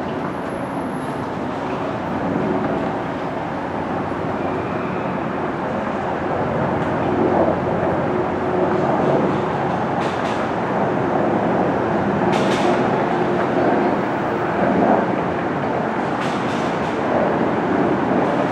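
A train running on its rails: a steady rumble and rattle, with a few sharp clicks along the way.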